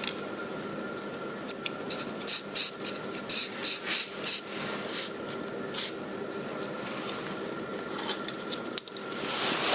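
Aerosol spray-paint can hissing in a quick series of short sprays, about eight in a few seconds, then one longer spray near the end.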